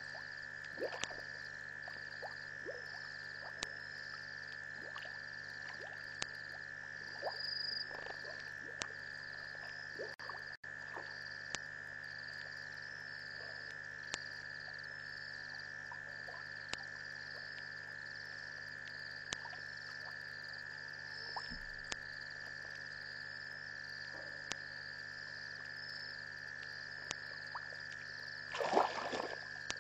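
Night chorus of frogs and insects: a steady high-pitched trill with a flickering higher buzz over it, dotted with short clicking calls. A brief louder sound comes near the end.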